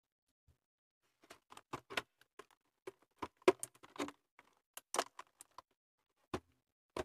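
Irregular small plastic clicks and taps from an action figure's accessories and packaging being handled and set down on a desk, the sharpest about three and a half seconds in.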